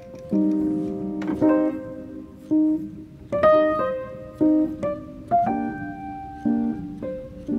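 Background piano music, a melody over chords struck about once a second.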